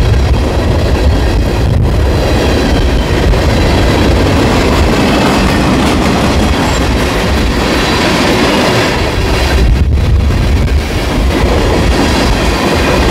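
Canadian National manifest freight train rolling past close by: a steady, loud rumble of the train on the rails.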